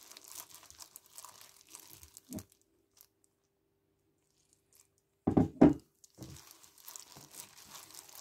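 Plastic-gloved hand mixing and squeezing crumbly flour dough in a bowl: soft crinkling of the disposable glove and rustling of the dough. It stops for a couple of seconds in the middle, then two loud thumps come about half a second apart, and the rustling starts again.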